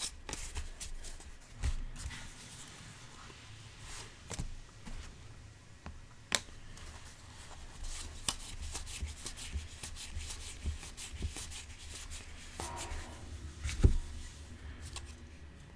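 Baseball trading cards being flipped through by hand: cards sliding and rubbing against each other with frequent small clicks and flicks, a sharper click about six seconds in and a soft thump near the end.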